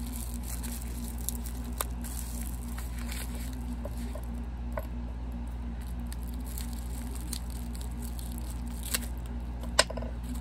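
Faint handling noises from hands turning a crystal: soft, scattered clicks and light rustling, with a sharper click near the end, over a steady low electrical hum.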